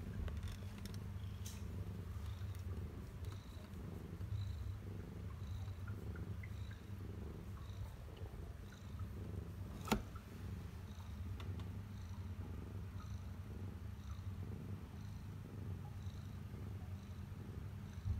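Domestic cat purring steadily while in labour, with one sharp click about halfway through.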